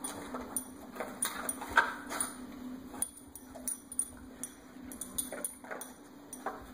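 A dog nosing and pushing a hard plastic star-shaped treat puzzle: irregular clicks, taps and knocks of plastic, with the light jingle of a chain collar. A faint steady hum runs underneath.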